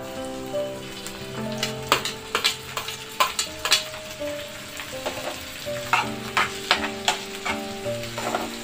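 Diced onions sizzling in hot oil in a frying pan as chopped tomatoes are pushed in with a metal spoon. The spoon strikes the steel plate and the pan in a run of sharp clicks and scrapes from about two seconds in, then stirs the tomatoes in.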